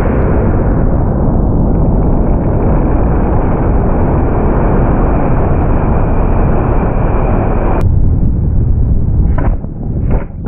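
High-power rocket in flight heard from its body-mounted camera: a loud, steady rushing roar of the Cesaroni I-297 motor and the airstream over the camera. The roar cuts off suddenly with a click about three-quarters through, leaving gusty wind buffeting on the microphone.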